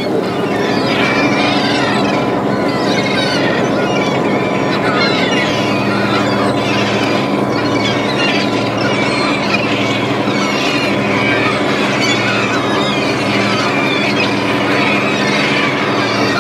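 Sardine seiner's engine and deck gear running with a steady hum while the seine net is hauled aboard, under a constant mass of high squeaking and squealing. From about seven seconds in, the low hum pulses about once a second.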